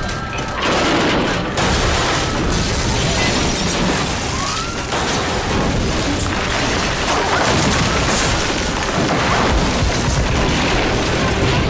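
Dense, loud destruction effects from a disaster scene: continuous rumbling and crashing with repeated booms.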